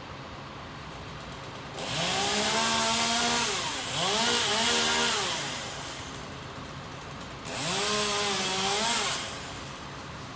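Chainsaw revved up three times, each burst rising in pitch and then holding steady, dropping back to a lower idle between.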